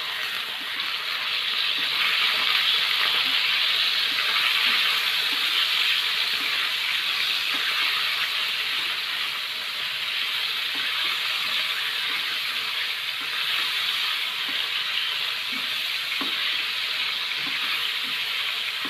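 Pieces of meat sizzling in hot oil in a non-stick frying pan as they are stirred with a silicone spatula: a steady frying hiss, with a few faint taps of the spatula.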